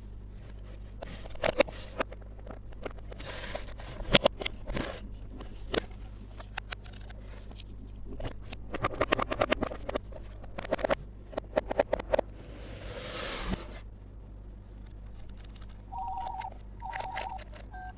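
Plastic toy playset pieces being handled, with irregular sharp clicks, taps and scrapes and a brief rustle about 13 s in. Near the end, short electronic beeping tones start.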